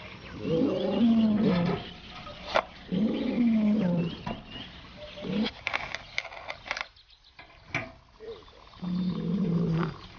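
A cat yowling in displeasure: three long, low, drawn-out growling calls that waver in pitch, with a few sharp clicks and knocks between them.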